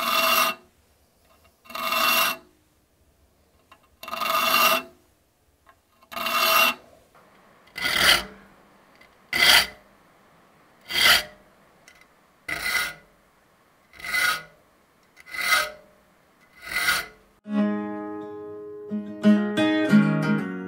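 Saw file rasping across the teeth of a hand saw clamped in a saw vise, sharpening it: about eleven separate strokes, one every second and a half to two seconds, the later ones shorter. Near the end, music comes in.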